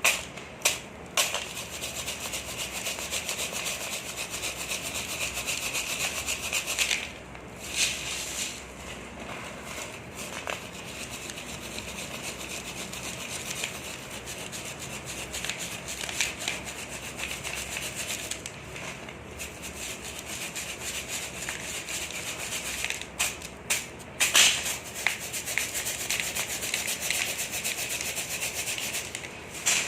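Dry, dusty sand crumbles being crushed: a continuous fine crunching crackle, with a few louder crunches scattered through, the loudest about twenty-four seconds in.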